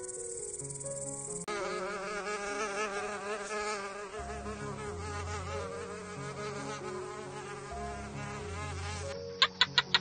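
A bush-cricket's continuous high-pitched trill, cut off about a second and a half in by a fly's buzzing with a wavering pitch. The buzz runs until near the end, when a quick series of sharp clicks starts. Soft background music plays underneath.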